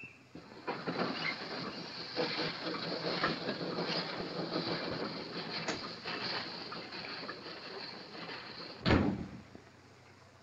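A train clattering past with a steady rattle of small clicks. About nine seconds in, a door slams shut with a single loud knock, and the train noise is cut off to a low hush.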